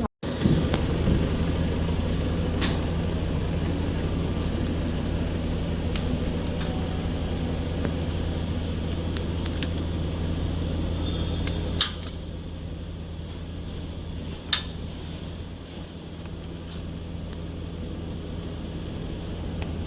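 Steady low machinery hum with a few sharp metallic clinks, as of tools and metal parts being handled during machine installation; the hum drops noticeably about twelve seconds in.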